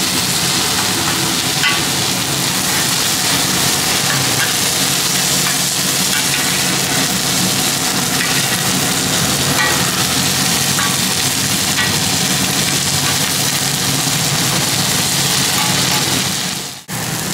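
Scrambled egg sizzling steadily in hot oil on a large flat frying pan, stirred with a metal spatula that gives a few light scrapes and taps. The sound drops out briefly near the end.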